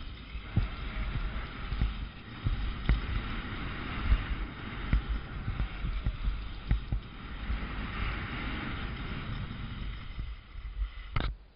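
Skis sliding and scraping over snow during a fast downhill ski run, a steady rough hiss that swells and fades with the turns, mixed with wind buffeting the microphone in irregular low thumps. A sharp click near the end, after which the sound drops away.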